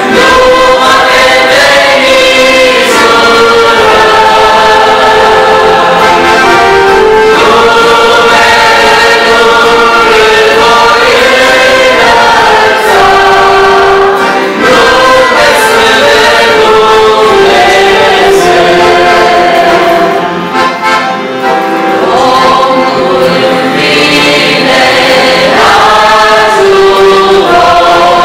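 Group of voices singing a hymn together, accompanied by accordion and acoustic guitar.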